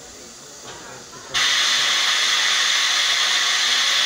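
Steam locomotive venting steam: a loud, steady hiss starts suddenly about a second in and keeps going.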